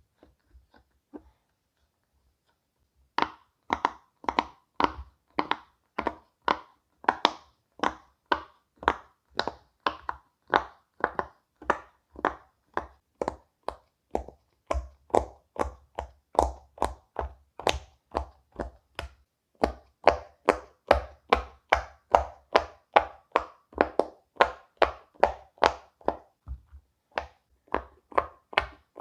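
Silicone pop-it fidget toy bubbles pressed one after another, making short popping sounds at about two to three pops a second, starting a few seconds in, with a couple of brief pauses.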